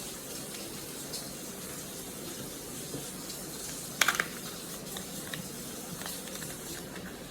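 Plastic packaging of a NeeDoh squishy stress ball being opened and handled: a few soft clicks and a short crinkle about four seconds in, over a steady hiss.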